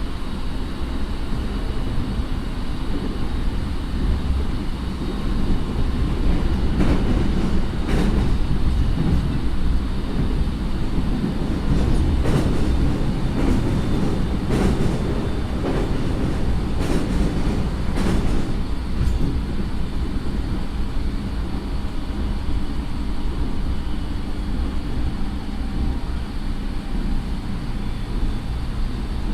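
A JR 209 series electric train motor car running, heard from inside the car: a steady rumble of wheels on rail at an even pace, with a few faint steady tones. In the middle comes a run of sharp clacks as the wheels pass over rail joints or points.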